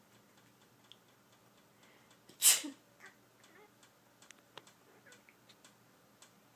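A person sneezes once, loudly, about two and a half seconds in. Faint scattered clicks follow.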